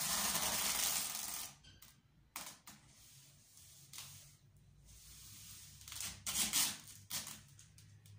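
Packing tape pulled off the roll and pressed onto a cardboard box: a long tearing screech in the first second and a half, then more short rips about six to seven seconds in, with small clicks and cardboard rustles between.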